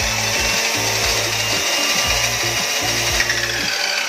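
Kawasaki abrasive cut-off machine's electric motor and disc running steadily at full speed on a test run, after its armature has been rewound.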